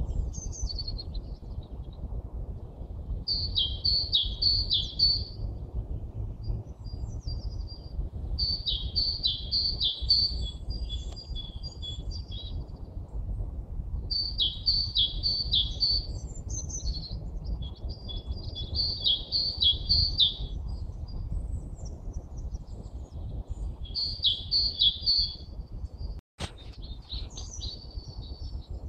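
A songbird singing short phrases of quick repeated notes, one phrase every few seconds, over a steady low rumble.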